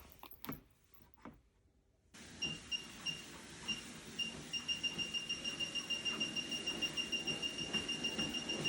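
A few faint clicks, then about two seconds in the ANCHEER folding treadmill starts running: a steady belt-and-motor noise with a high whine that pulses evenly, over a run of soft thuds.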